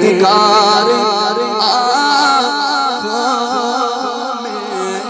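A man's voice singing a devotional Urdu kalam through a microphone and loudspeakers, holding long ornamented notes that waver up and down without words.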